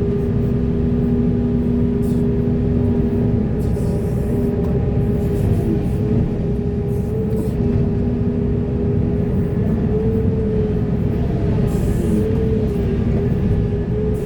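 Heavy excavator's diesel engine and hydraulics running steadily under working load, a constant drone with a whine whose pitch bends briefly a few times.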